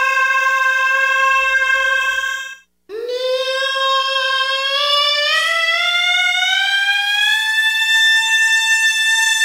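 A singer's steely, vibrato-free pharyngeal voice holding a high C5, breaking off about two and a half seconds in. A new note then scoops in from below and slides slowly upward to about A5, held near the end: the unmixed pharyngeal tone, with no chest or falsetto blended in.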